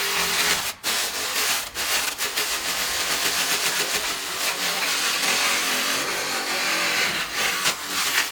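A power tool running on wood, a steady rough hiss with a faint hum under it, broken by two short gaps near the start.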